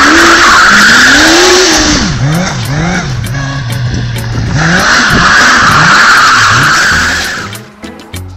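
Go-kart powered by a Kawasaki Ninja 900 inline-four motorcycle engine, revving up and down while its rear tires squeal as it spins on asphalt. The squeal drops out for a couple of seconds in the middle while the engine revs on, returns, then the sound fades near the end as music starts.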